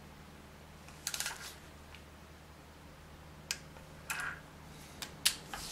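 Torque wrench and socket on the 6 mm timing chain guide bolts, being tightened to 10 Nm: a few sharp metallic clicks and taps, a short cluster about a second in, then more spaced out, bunching toward the end where the loudest falls.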